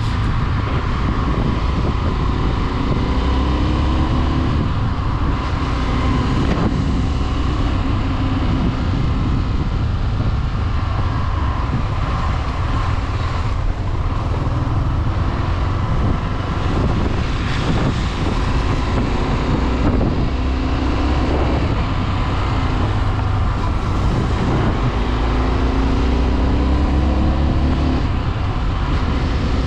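Small, low-displacement motorcycle engine running under way, its pitch climbing and settling back several times as it pulls, over a steady rush of wind and road noise.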